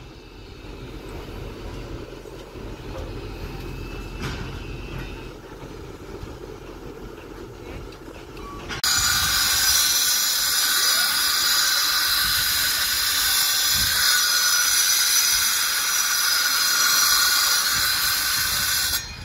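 A low engine rumble, then about nine seconds in a loud, steady hiss starts suddenly and runs until it cuts off near the end, from work in a footing pit that raises a thick cloud of dust.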